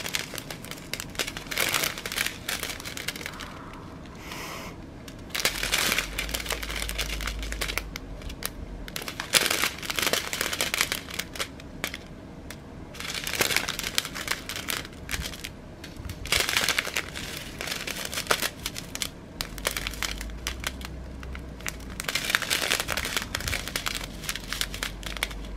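Small clear plastic bags of round resin diamond painting drills crinkling as they are handled and flattened between the fingers. The crinkling comes in irregular spells with brief lulls.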